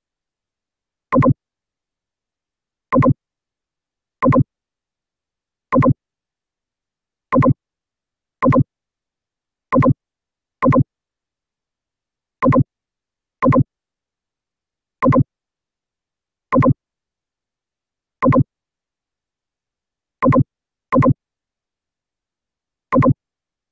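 Short, identical electronic blips, about sixteen of them at uneven intervals with silence between, two of them close together near the end. The pattern fits a click sound effect marking each mouse click in a screen recording.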